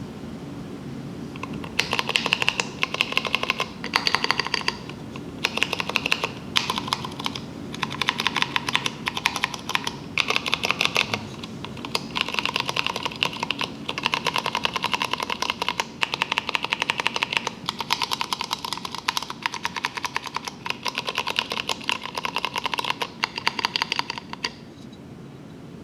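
Typing on a Rama M10-A mechanical keyboard with Cherry MX Clear tactile switches and Signature Plastics SA-profile keycaps: rapid runs of key clacks with short pauses. The typing starts about two seconds in and stops about a second before the end.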